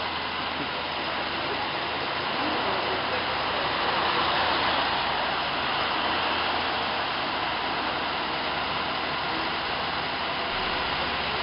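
Traffic noise from a large truck driving past close by, swelling to its loudest about four to five seconds in and easing off, over a steady low engine hum.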